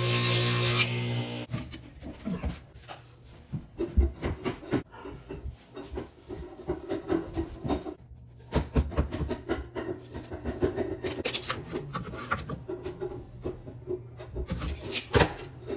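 A steady hum cuts off about a second in. After that come irregular light knocks, clicks and rubbing as flooring planks are handled, fitted together and measured on the floor.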